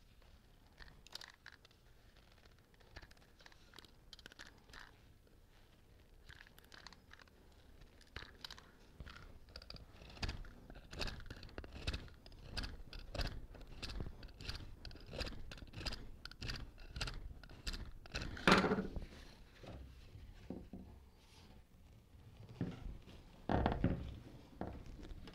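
A hand-held blade shaving the end of a wooden dowel in short scraping strokes, carving it down to fit a chair-leg socket. The strokes are faint at first, then come about two a second, with two louder knocks in the last third.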